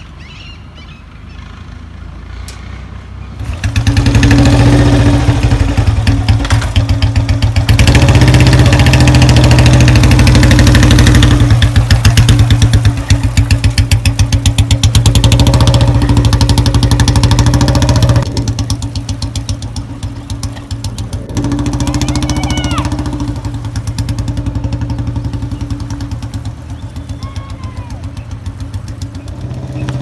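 Royal Enfield Electra's single-cylinder engine running with an even, rapid firing beat. It gets much louder about four seconds in, stays loudest until about eighteen seconds, drops back, then picks up again and eases off toward the end.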